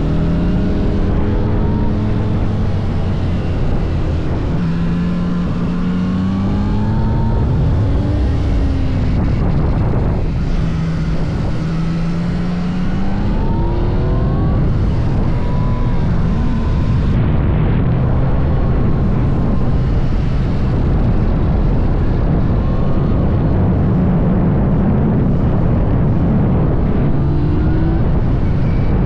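Yamaha MT-09 SP's 890 cc three-cylinder engine running hard, its pitch climbing and dropping back again and again as the bike accelerates, shifts and slows.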